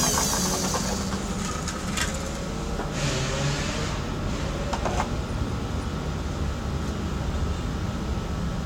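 An electric drill driving a homemade sanding cylinder winds down to a stop in the first moment, leaving a steady low rumble with a few light clicks and knocks.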